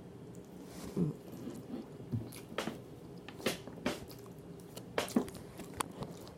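A person chewing food with a series of irregular wet smacks and clicks.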